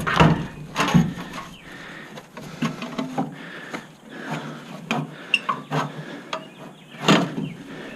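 Sheet-metal panels of a heat pump cabinet clanking and rattling as they are handled and fitted back together, with irregular sharp knocks; the loudest come at the start, about a second in, and about seven seconds in.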